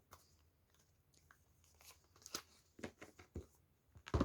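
Tarot cards being handled and shuffled: faint, scattered rustles and snaps of card stock, with the loudest snap near the end.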